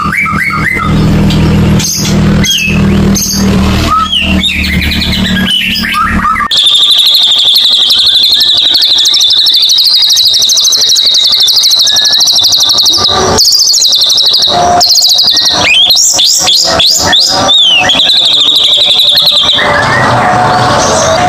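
White-rumped shama (murai batu) song used as a lure: varied whistles and sharp calls over a low hum. About six and a half seconds in, the recording switches abruptly to a dense chorus over a steady high trill.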